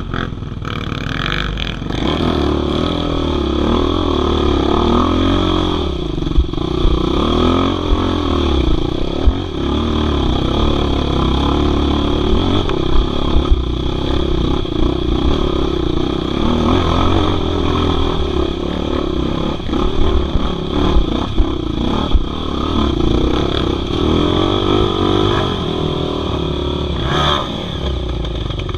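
Off-road motorcycle engine running under the rider, revs rising and falling on a rough climb, with a few short knocks scattered through.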